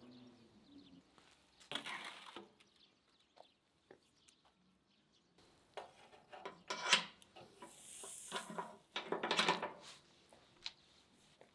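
Metal kebab skewers clinking against each other and the steel sides of a charcoal grill as they are laid over the coals, in three short rattling bursts.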